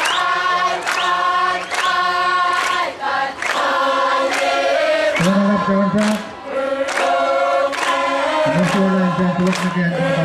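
Crowd of many voices singing a song together in parts, with long held notes. A sharp beat keeps time about one and a half times a second.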